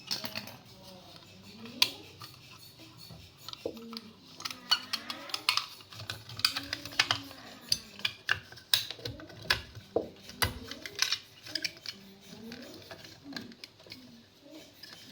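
Irregular light clicks and clinks of small hard objects being handled, with faint voices in the background.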